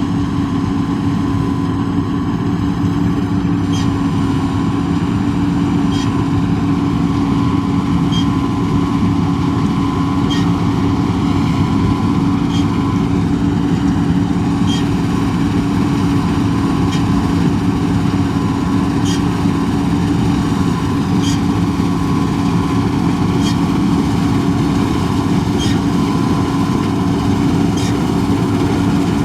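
Combine harvester running steadily while harvesting soybeans, a constant engine and machinery drone with a faint click about every two seconds.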